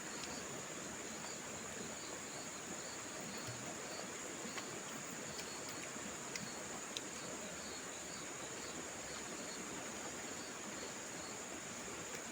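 Steady high-pitched insect chorus over a faint even hiss of outdoor ambience, with a few soft clicks.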